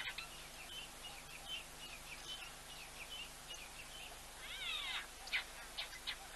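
Wild birds calling in the bush: a steady run of short, high chirps, with a quick burst of sweeping whistled notes about four and a half seconds in.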